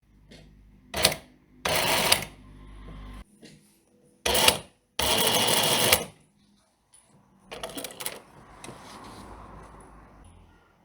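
Sewing machine stitching in short runs, starting and stopping. Brief loud bursts come about one and two seconds in, then two more around the middle, the longest lasting about a second. Quieter, softer running follows toward the end.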